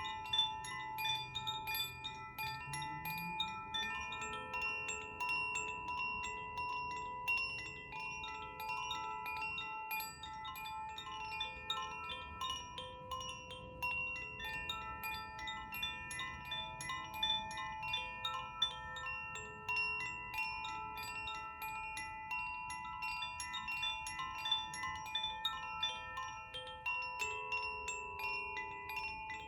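Koshi chimes tinkling continuously in a dense shimmer of rapid strikes, over steady, sustained ringing tones from alchemical crystal singing bowls. A low tone rises in pitch a few seconds in.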